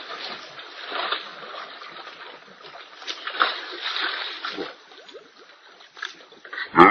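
Water splashing and sloshing around a man's body lying in a shallow stream, fading over a few seconds. Near the end comes a brief, loud cry.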